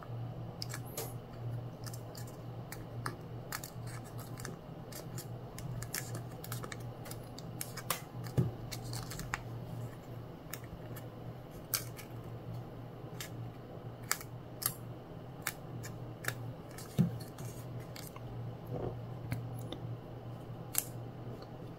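A sheet of origami paper crackling and rustling as fingers fold and crease it, with scattered short crinkles throughout. A faint steady low hum sits beneath.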